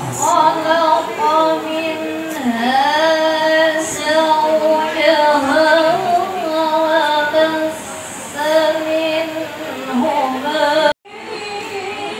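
A female voice singing a slow melody with long held, wavering notes and gliding runs between them. It cuts off abruptly about eleven seconds in.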